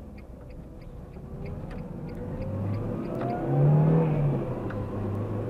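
Car engine heard from inside the cabin, accelerating with its pitch and loudness rising. The pitch drops once about four seconds in at a gear change, and the engine pulls on. A light, fast, regular ticking stops about two seconds in.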